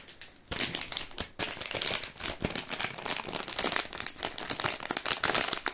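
Crinkly plastic packaging being handled: a dense run of crackling rustles that starts about half a second in and keeps going.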